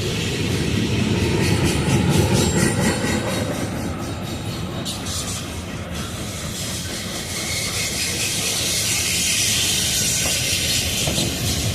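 Freight train rolling past: a steady rumble of steel wheels on rail, with a run of clacks over rail joints in the first half and a high hiss toward the end.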